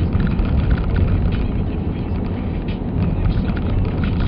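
Steady low rumble of a vehicle driving over the snow-covered lake ice, heard from inside the cabin: engine and tyre noise, with scattered faint clicks and rattles.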